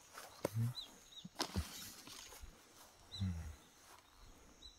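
A cat rummaging under a leafy bush: a few sharp rustles and knocks in the leaves and ground litter, with two short low sounds, one early and one about three seconds in. Small birds chirp faintly in the background.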